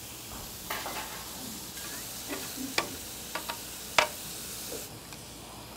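Pork belly and ginseng slices sizzling on a grill plate, with a steady hiss. A few sharp clicks of a metal utensil against the plate come in the second half, the loudest about four seconds in.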